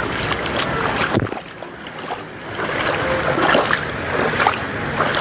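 Water splashing and sloshing as someone wades through a shallow, spring-fed stream pool, briefly quieter about a second and a half in.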